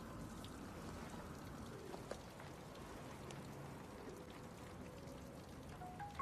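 Faint light rain: a soft steady patter with a few scattered drips.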